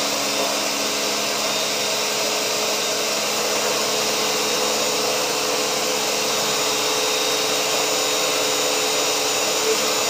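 Countertop blender running steadily, blending fruit in its jar: an even whirring motor noise with a steady hum.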